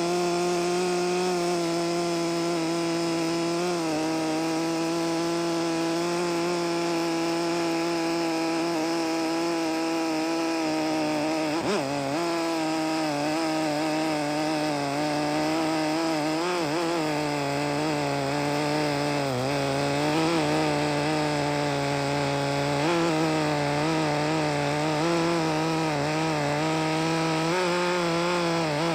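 Chainsaw running steadily at high revs, cutting lengthwise through a log in a chainsaw mill. Its engine note stays steady and dips briefly in pitch now and then.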